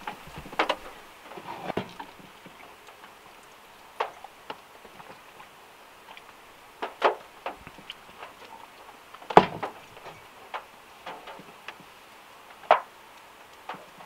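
Rainwater dripping from overhanging tree leaves onto the car roof, heard from inside the car as irregular single taps, sometimes a few close together, over a faint hiss of gentle rain.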